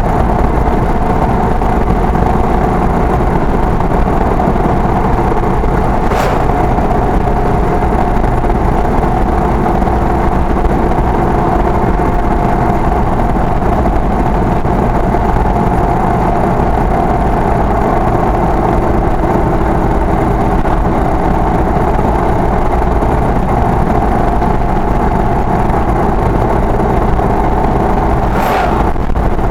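A vehicle's engine running steadily at cruising speed with tyre and road rumble, heard from inside the cab as a constant drone. Near the end an oncoming lorry passes with a brief whoosh.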